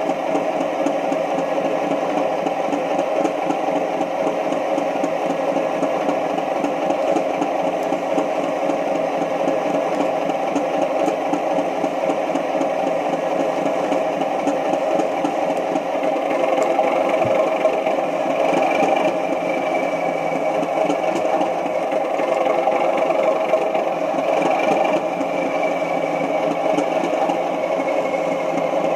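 A Heljan O gauge Class 37 model's DCC sound decoder playing a recorded English Electric diesel engine idling steadily through the model's large loudspeaker. About halfway through, a faint high whistle comes in and wavers.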